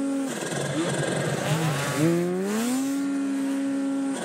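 Snowmobile engine running at high revs in deep powder: the throttle backs off about a third of a second in, then the engine revs back up about two seconds in and holds a steady high pitch before backing off again at the end.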